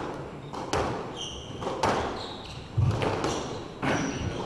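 Squash rally: the ball knocking sharply off rackets and walls every half second to a second, with sneakers squeaking briefly on the wooden court floor between the hits.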